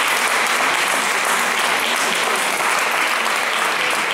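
Concert audience applauding, dense and steady.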